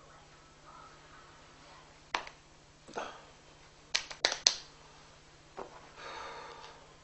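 A man slapping his own cheeks with his palms, trying to wake himself up. There are single sharp smacks, then three quick ones in a row about four seconds in, which are the loudest, then one more.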